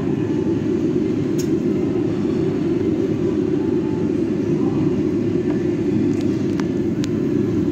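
Steady low roar of restaurant air extraction and ventilation fans, unchanging throughout, with a few faint light clicks of tableware.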